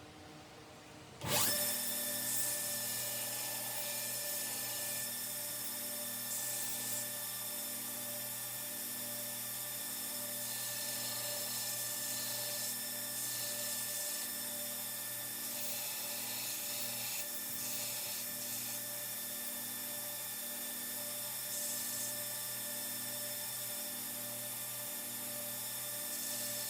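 Belt grinder running steadily, with a piece held against the abrasive belt, starting about a second in.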